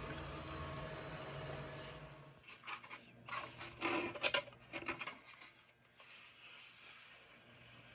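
A steady low machine hum that cuts off about two seconds in, followed by a few seconds of rubbing and scraping, like a hard object being handled.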